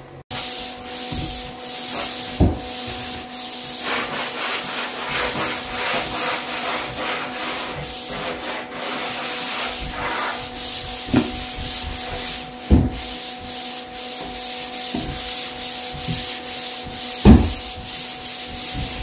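Hand sanding a wooden tabletop with a sanding sponge between coats of clear polyurethane finish: steady back-and-forth scrubbing strokes, with a few sharp knocks, the loudest near the end.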